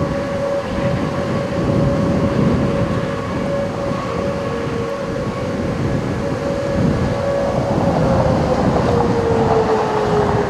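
Whelen outdoor warning siren sounding a steady tone for a tornado warning, which starts to wind down about eight seconds in, its pitch falling. Under it is a low rumble of wind and passing traffic.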